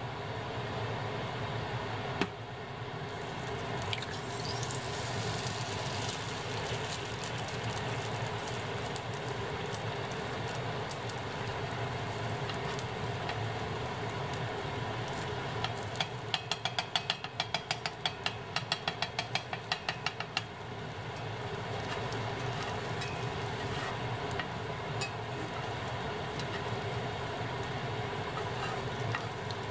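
An egg frying in a cast iron skillet, sizzling from about three seconds in after a single sharp knock, over a steady hum. Midway, a slotted metal spatula scrapes and taps against the pan in quick strokes for about five seconds.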